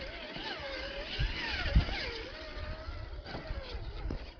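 Traxxas TRX-4 Defender 1/10-scale RC crawler's electric motor and drivetrain whining, the pitch rising and falling with the throttle, over a low rumble with a few sharp knocks from the chassis on the terrain.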